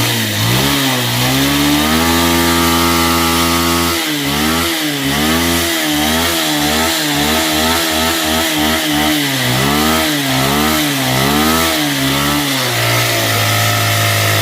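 Bajaj Pulsar 150's single-cylinder engine revved hard with a bottle fitted on the silencer: it climbs, holds high for a couple of seconds, then is blipped up and down over and over before dropping back to a steady idle near the end.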